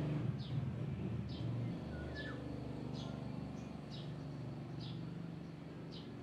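A steady low engine hum, with a bird giving short, high chirps that fall slightly in pitch, about one a second.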